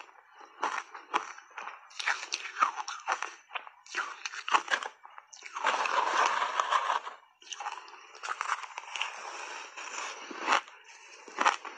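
Close-up crunchy, squeaky chewing of big bites of shaved ice coated in milk powder, heard as quick crackly crunches. Around six seconds in comes a longer rough scraping as a spoon digs through the shaved ice in a plastic tub.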